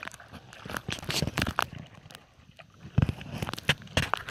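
Irregular knocks and taps from kayaks and paddles being handled on the water, with a louder cluster of knocks about three seconds in.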